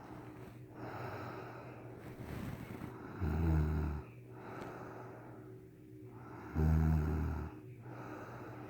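A woman snoring heavily in drunken sleep: two loud, low snores on the in-breath about three seconds apart, with quieter hissing breaths between them.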